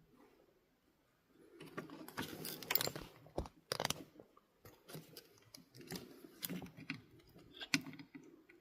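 A run of irregular small clicks and taps with a light rustle, starting about a second and a half in.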